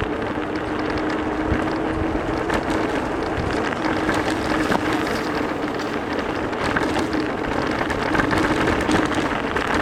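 Teewing Mars XTR electric scooter riding over packed snow: a steady rush of wind and tyre noise, with a steady whine from the drive.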